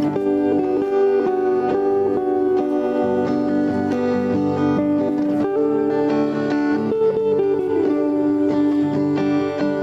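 Background music led by plucked guitar.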